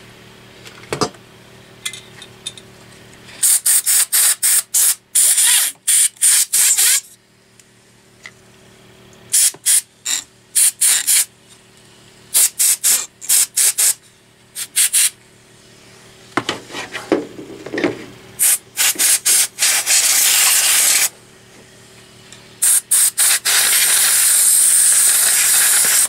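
Can of compressed air duster sprayed through a thin straw in rapid short hissing bursts into a computer's power supply and blower fan, with a few longer blasts near the end.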